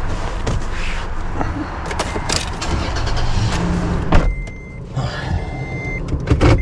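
Vehicle sounds: a low engine rumble with knocks and clunks, and a loud thump about four seconds in and another near the end. From about four seconds in, a high vehicle warning chime beeps on and off about once a second.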